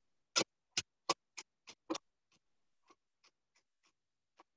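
Kitchen knife chopping fennel on a plastic cutting board: a steady run of short knocks, about three a second, strongest in the first two seconds and fainter after.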